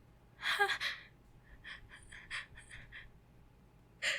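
A woman's sharp voiced gasp, then a run of about ten quick, faint breathy catches of the breath: the hitching build-up of a sneeze that is coming.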